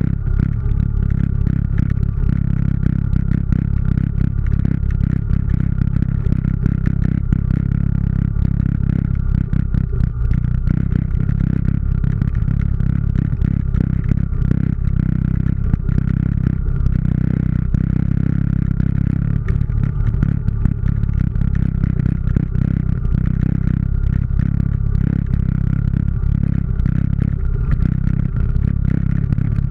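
ATV engine running steadily while the machine travels over a rocky trail, with rattling and clattering as it jolts over the rocks.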